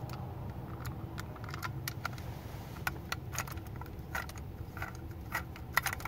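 Small, irregular metallic clicks and ticks of a screwdriver turning a screw into the housing of a KABA 3000-series push-button lock as it is reassembled, over a steady low hum.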